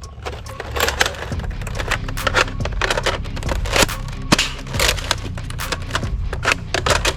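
Plastic toy blaster being handled, giving many irregular sharp clicks and clacks over a low steady hum.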